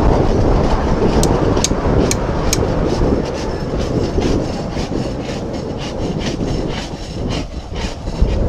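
Hand-tool work on the saildrive leg and fouled hull of a hauled-out yacht: a rough scraping noise with sharp metallic clicks, a few at first, then a steady run of about three a second from around three seconds in.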